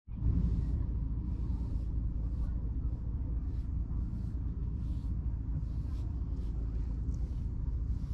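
Wind buffeting the microphone with a steady low rumble. Over it come soft, repeated scratchy strokes of a slicker brush drawn through a cat's fur, about one or two a second.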